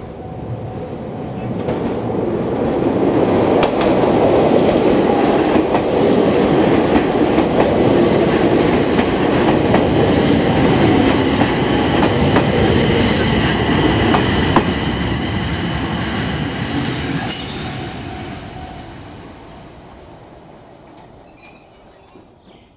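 A Kobe Electric Railway Ao Line train running by. The rumble of its wheels builds over the first couple of seconds, stays loud, then fades away in the last few seconds. A thin, steady, high wheel squeal sounds through the loudest part.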